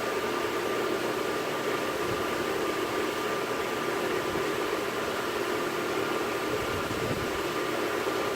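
Knife-making belt grinder running steadily: an even rushing noise with a steady motor whine.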